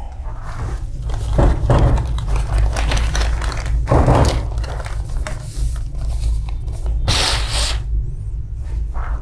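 Handling noise as a photocopier's green OPC drum is lifted away from the bench: a few knocks and a rustle, the rustle about seven seconds in, over a steady low hum.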